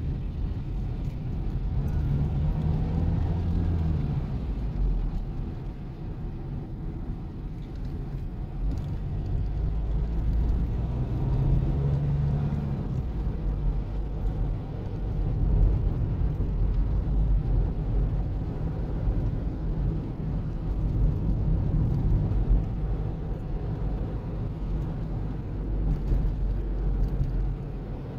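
Steady low rumble of a car's engine and tyres heard from inside the cabin while driving, the engine note rising and falling briefly a couple of times.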